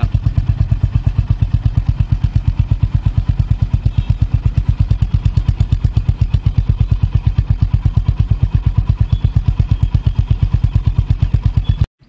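Honda CB350 RS's 348 cc single-cylinder engine idling at the exhaust, an even train of about seven firing pulses a second. It is switched off near the end and cuts out at once.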